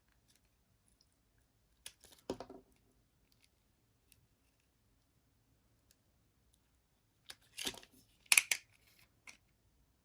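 A blade cutting through soap in two bursts of crisp crunching, one about two seconds in and a louder one near the end, with faint scattered clicks between.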